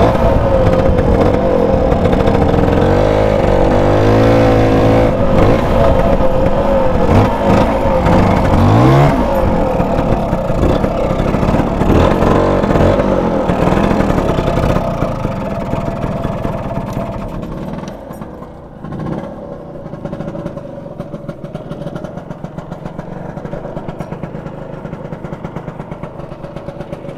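Motor scooter engine running as the scooter rides along, with a rise in revs about nine seconds in. It then drops away and, from about eighteen seconds, settles to a quieter, evenly pulsing idle.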